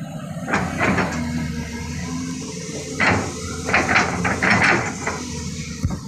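Tracked excavator's diesel engine running steadily, with a series of sharp metallic clanks and knocks from the bucket and arm at work: two about half a second in, then a cluster about three to five seconds in.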